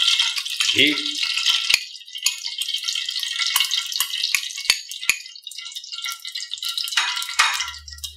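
Ghee sizzling and crackling in a pot preheated for two to three minutes, as a steady high hiss with scattered sharp pops as it meets the hot metal.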